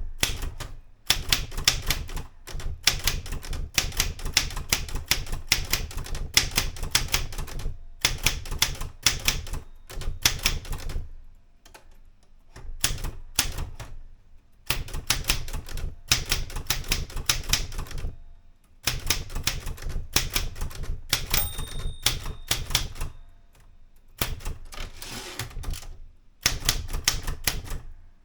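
Erika 105 manual typewriter being typed on: runs of rapid key strikes with short pauses between them, and once, about three quarters of the way through, a brief ringing tone.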